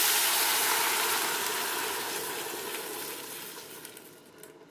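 Cold water poured steadily from a glass measuring jug into a hot stainless steel stock pot of sautéed vegetables and a whole chicken, a rushing splash that fades away over the last couple of seconds.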